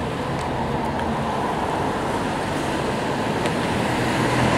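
A car approaching along the road, its engine and tyre noise growing slowly louder.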